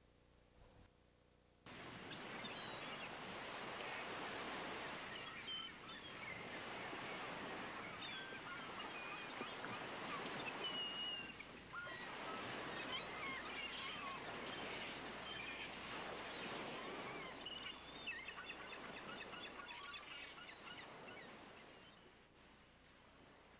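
Outdoor ambience: many birds chirping over a steady hiss. It comes in suddenly after a moment of near quiet and fades out near the end.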